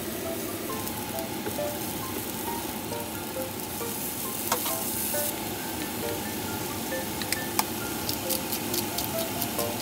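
Food frying in a hot pan: a steady sizzle with scattered crackles and pops, the loudest about halfway through and in the last few seconds.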